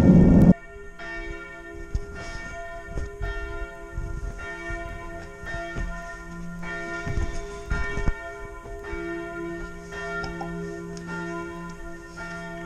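Loud wind and riding noise cuts off about half a second in, then church bells ring: several bells struck over and over at an irregular pace, their tones overlapping and ringing on.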